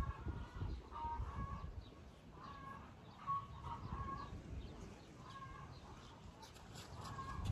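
Chickens clucking, short repeated calls one or two a second, over a low, uneven rumble.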